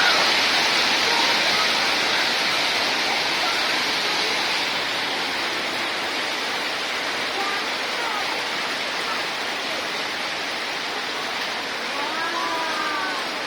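Hail and rain pelting down in a dense, steady hiss that eases gradually over the seconds.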